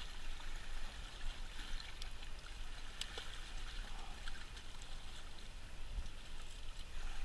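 Sea water surging and splashing against shore rocks, a steady fluctuating wash with a low rumble underneath. A single sharp click about three seconds in.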